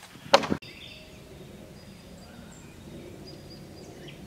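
A single hard knock on the wooden raised-bed frame near the start, like the ones just before it. After it come faint, scattered bird chirps over a low outdoor background.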